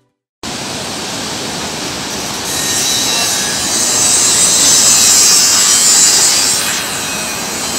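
A steady rushing hiss of outdoor ambience at a concrete spillway construction site. It starts abruptly about half a second in and grows louder through the middle.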